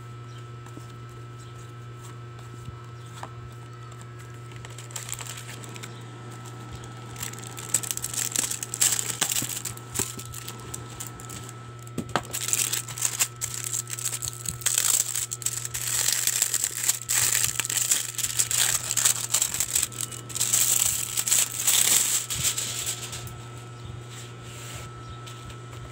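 Plastic wrapping crinkling and rustling in irregular handled bursts as a photobook is unwrapped. The crinkling starts about a quarter of the way in and dies away shortly before the end, over a steady low hum.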